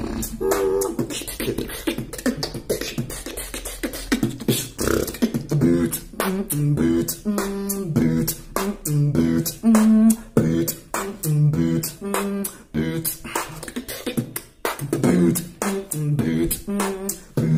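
Solo human beatboxing: a fast run of mouth-made kicks, snares and clicks. From about five seconds in, hummed bass notes step between pitches under the drum sounds.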